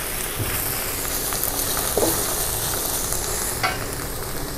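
Mushrooms sizzling in oil in a steel wok while a metal spatula stirs and turns them, with a few sharp clinks of the spatula against the pan. The mushrooms are about half cooked.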